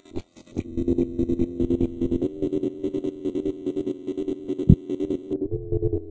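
Looped electronic music from a keyboard and loop station. A few sparse beats give way, about half a second in, to a held synth chord that pulses quickly and steadily, with one deep thump near the end.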